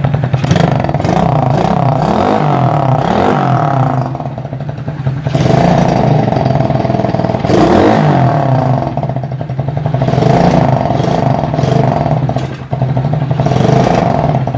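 Dirt bike engine running, its throttle blipped several times so the pitch rises and falls, with two brief drops in level around four seconds in and near the end.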